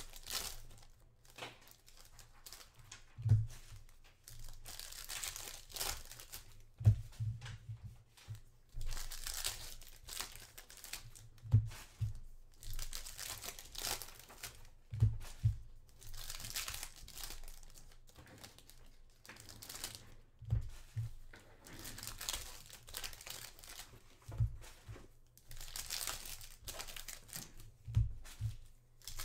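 Foil wrappers of trading card packs being torn open and crinkled by hand, in repeated stretches of crackly rustling. Short dull thumps come every few seconds, the loudest about 3 and 7 seconds in.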